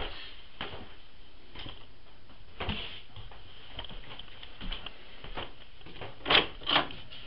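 Footsteps and handling knocks from a handheld camera being carried along, about one every second, with two louder knocks close together near the end, over a steady hiss.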